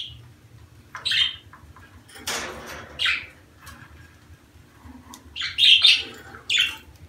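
Budgerigars calling in short, sharp chirps and squawks, spaced out, with a cluster of loud calls near the end and one harsher, rougher call about two seconds in. This is the chatter of budgies in the breeding season.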